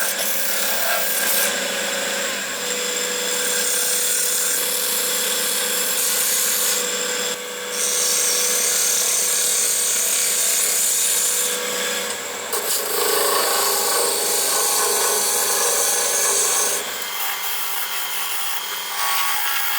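An electric power tool working wood: a steady motor hum under a continuous rasping, abrasive noise that changes character every few seconds as the tool works the surface.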